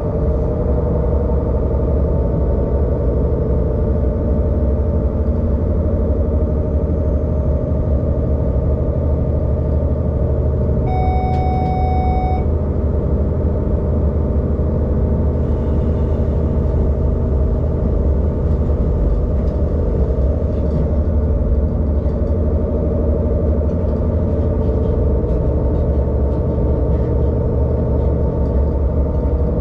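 ÖBB diesel railcar's engine and running gear drone steadily, heard from inside the driver's cab. About eleven seconds in, a single short cab warning beep sounds for a second and a half.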